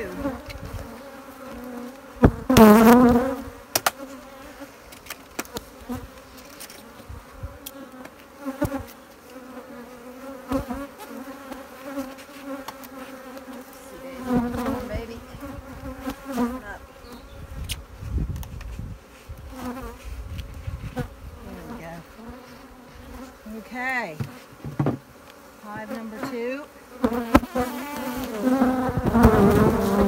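Honeybees of a busy colony droning steadily around an opened hive, with single bees flying close past and swinging up and down in pitch. A few sharp clicks and knocks come from the hive's strap and lid being handled, the loudest about two and a half seconds in.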